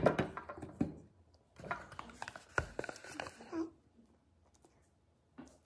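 Skincare bottles being handled and set down on a tabletop: a series of light knocks and taps in two clusters, then a pause near the end.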